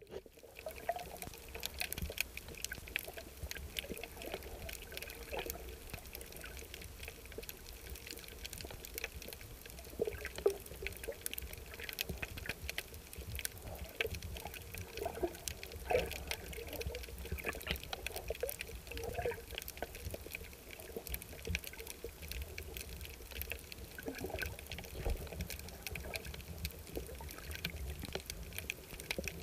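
Underwater ambience: a steady low water rumble with irregular gurgles and many scattered faint clicks and crackles.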